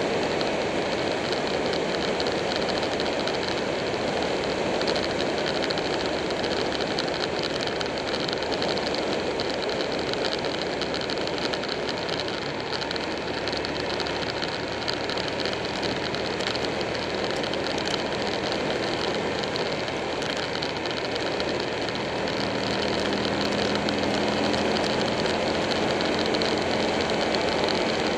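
Motorcycle on the move, recorded from a camera mounted on the bike: the Buell 1125R's V-twin engine runs at a steady cruise under constant wind and tyre noise. A steadier engine note comes through in the last few seconds.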